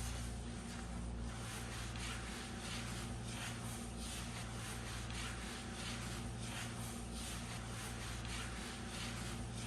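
Repeated rubbing strokes over a steady low hum.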